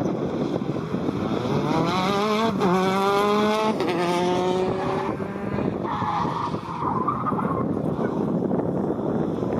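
Rally car engine revving hard as it accelerates, with the pitch climbing through the gears and two upshifts about two and a half and four seconds in. A brief tyre squeal follows about six seconds in.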